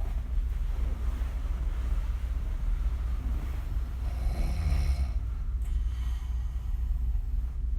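A woman snoring with her mouth open, her lips blowing and flapping on the breath. One snore stands out about four seconds in, over a steady low rumble.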